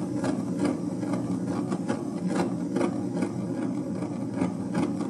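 Kitchen blowtorch flame running steadily as it sears mullet roe, with faint ticks scattered through it.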